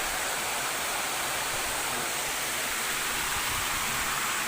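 Steady rushing of river water, an even hiss with no change in level.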